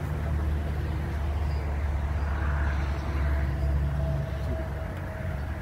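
A vehicle engine idling: a steady low hum.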